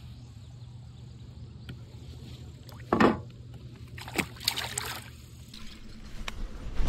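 Sounds of a fishing kayak on the water: a steady low hum that stops about five and a half seconds in. There is a sharp knock or splash about three seconds in and a cluster of splashing and handling sounds a second later. From about six seconds a louder low rumbling noise comes in.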